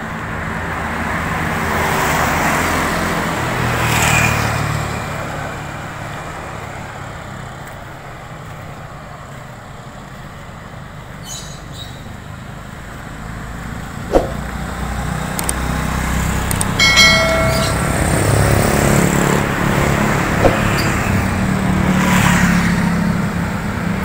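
Road traffic: motorbikes and cars passing, their engines rising and falling as they come and go, quieter in the middle. A sharp click comes a little past halfway and a short, high tone about two-thirds through.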